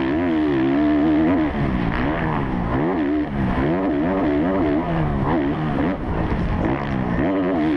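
Kawasaki KX450F single-cylinder four-stroke motocross engine at race pace, its revs rising and falling over and over as the throttle is worked and gears are changed, with brief dips where the throttle is chopped.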